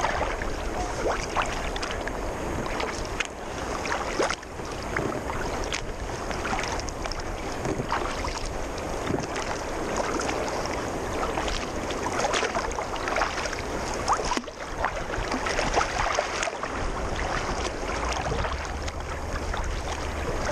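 Water slapping and splashing irregularly against the hull of a sea kayak paddled over choppy sea, heard close from a camera on the bow deck, with wind rumbling on the microphone.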